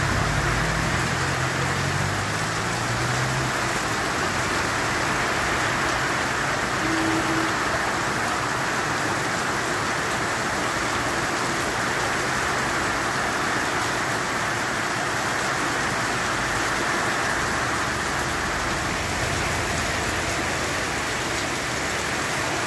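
Heavy rain falling steadily, an even hiss of downpour on the street, cars and roofs.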